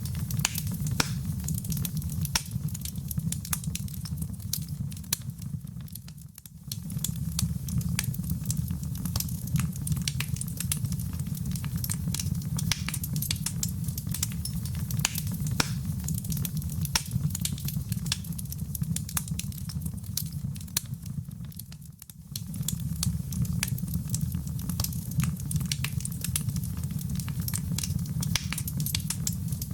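Wood fire burning in a fireplace: a steady low rumble of flames with dense, irregular crackling and popping. The sound fades down briefly and comes back twice.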